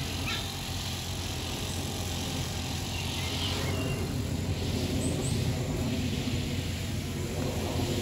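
Steady low background rumble, with a faint high chirp about three and a half seconds in and another brief one about five seconds in.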